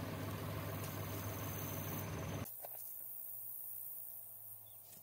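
Farm tractor engine running steadily. About two and a half seconds in, the sound drops sharply to a quieter steady low hum with a few faint clicks.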